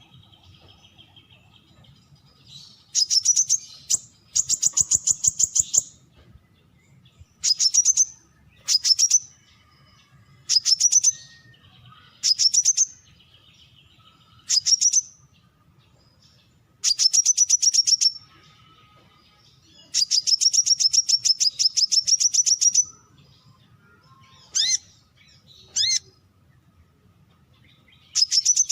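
Brown-throated sunbird calling: bursts of rapid, high chip notes, each burst from half a second to three seconds long, repeated every second or two. Near the end come two short, single, thin notes.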